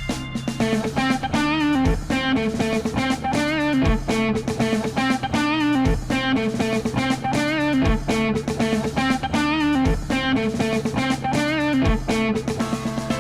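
Background music: a rock track led by electric guitar, with a deep beat landing about every two seconds.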